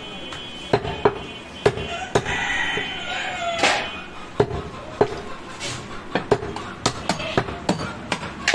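Butcher's cleaver chopping a goat leg through meat and bone: a string of sharp, irregular chops, coming faster, two or three a second, in the second half.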